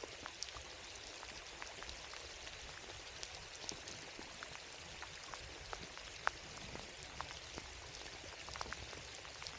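Steady rain falling, with many individual drops ticking close by and one sharper drop hit about six seconds in.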